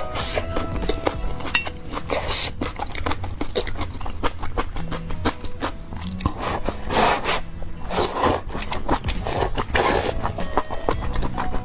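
A person eating noodles: several short slurps with chewing and small utensil clicks in between. Faint background music lies under it.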